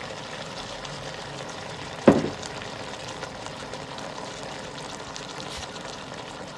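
Brown stew chicken sizzling in a pan with water just added, a steady hiss, broken by a single sharp knock about two seconds in.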